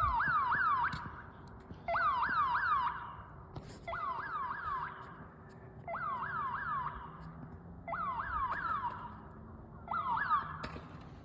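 Security alarm siren sounding in repeated bursts about every two seconds. Each burst is a quick run of about four rising whoops.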